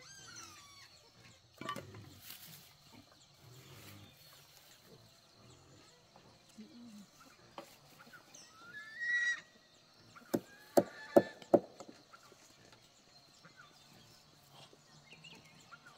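Pigs squealing and grunting now and then, with four sharp knocks in quick succession a little past the middle, the loudest sounds.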